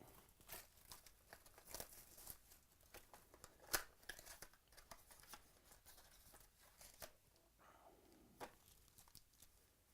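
Faint handling of trading cards and their pack wrappers: scattered small clicks, rustles and a little crinkling, with a slightly louder click a little under four seconds in.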